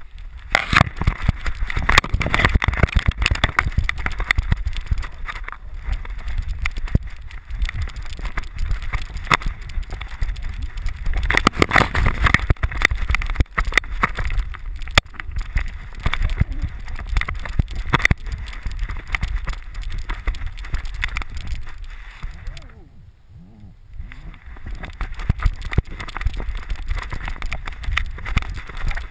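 Handling noise from a camera strapped to a Rhodesian ridgeback as it plays and runs in snow: constant knocking and low rumbling as its body jolts and rubs the housing. The noise eases for a couple of seconds about 23 seconds in.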